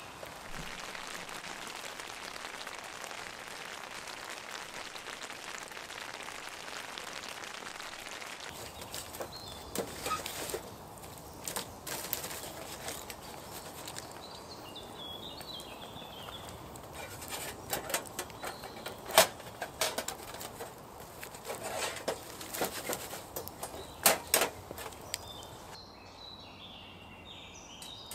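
Steady rain falling for the first eight seconds or so, then a wood fire in a steel fire pit crackling, with scattered sharp pops, the loudest about nineteen and twenty-four seconds in. Birds chirp briefly now and then.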